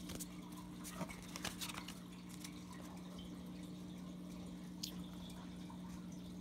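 Faint ticks and rustles of trading cards being handled and flipped through, a few scattered light clicks over a steady low hum.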